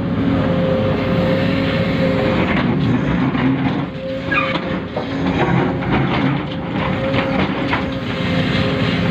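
Small electric motors and gears of radio-controlled model machines whining steadily, with irregular clicks and knocks over them from about two and a half seconds in.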